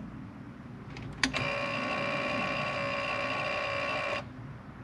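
A click, then a steady electronic warning buzzer sounding for about three seconds and cutting off sharply, as the boat's ignition is switched on.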